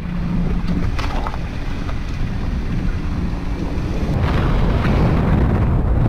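Wind buffeting the microphone of a camera mounted low on the outside of a car, over the rumble of tyres rolling on a dirt road. It grows louder about four seconds in.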